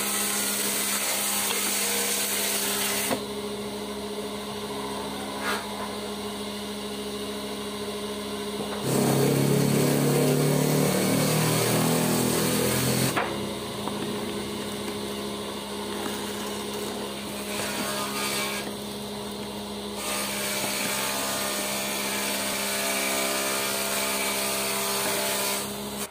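An electric power-tool motor running with a steady hum, louder and rougher for about four seconds a third of the way in.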